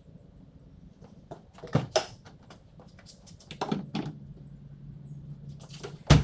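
A few separate clunks and rattles of parts being handled during a shifter install: one about two seconds in, another about four seconds in, and the loudest knock near the end. A faint steady hum starts about halfway through.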